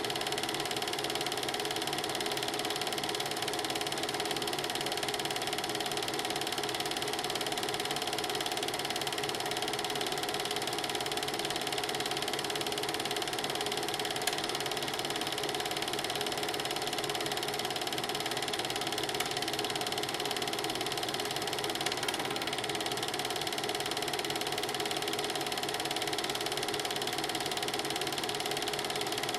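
Film projector running steadily, its mechanism giving an even whirr with a fast clatter and a constant hum.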